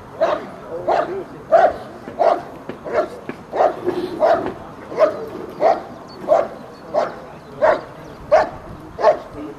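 German Shepherd Dog barking at a motionless Schutzhund helper in a steady, even rhythm, about fourteen sharp barks, roughly three every two seconds: the dog is guarding the helper in the protection phase.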